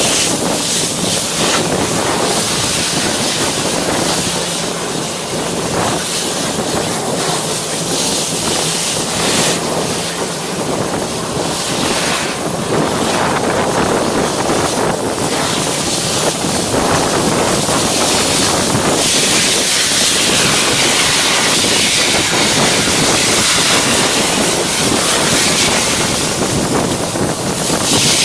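Hydro excavator at work: a loud, steady rushing hiss of a high-pressure water jet washing out soil, with the rush of the vacuum suction.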